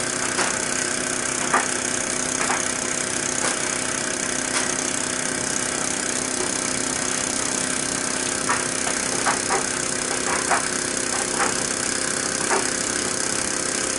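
Miniature Microcosm live steam engine running steadily under load from a small generator: a steady hum and hiss with occasional short clicks. The engine is still being run in.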